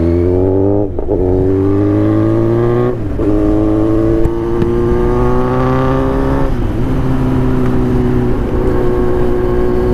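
Kawasaki Z900's inline-four through a full-system aftermarket exhaust, pulling hard with a rising engine note broken by quick gear changes about one and three seconds in. Near six and a half seconds the pitch drops, and the engine runs on at a steadier, lower note with wind rush underneath.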